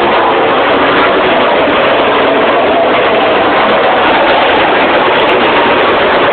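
Loud, steady engine noise: a continuous drone with no single vehicle passing by.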